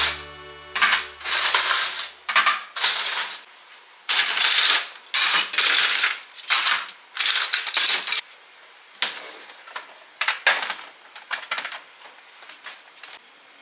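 Stainless steel cookie cutters clinking and clattering against each other in a plastic storage box as a hand rummages through them, in a run of loud jangles, then fewer, quieter clicks in the second half.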